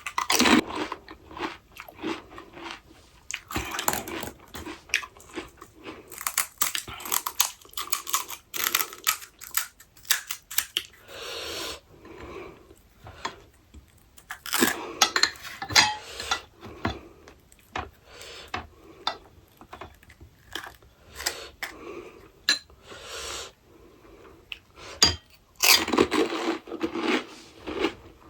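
A person eating pani puri close to the microphone, biting into the crisp puri shells and chewing with repeated crunching and crackling that comes in clusters.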